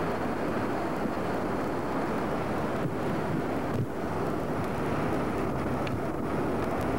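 Steady rushing roar of a wildfire burning through pine trees and brush.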